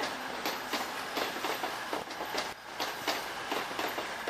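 A passing passenger train's wheels clattering over rail joints and pointwork: a quick, irregular run of several clicks a second over steady rolling rail noise.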